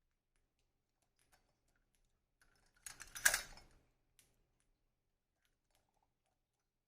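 A short burst of clattering clicks, like small hard objects knocking together, lasting about a second around three seconds in, with a few faint isolated ticks elsewhere.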